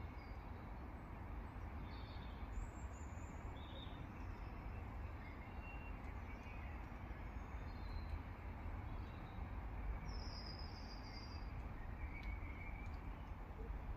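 Garden birds giving scattered short, high calls and chirps, the longest call about ten seconds in, over a steady low background rumble.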